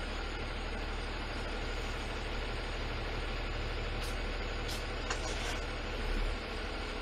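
Garbage truck engine idling steadily, heard from inside the cab, with a few faint clicks about four to five seconds in.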